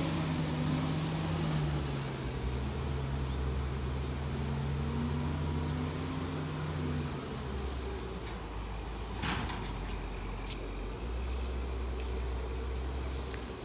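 Crane Carrier LET1 front-loading garbage truck's diesel engine running as the truck pulls away, its note dropping about seven seconds in. A short hiss of air brakes comes a couple of seconds later.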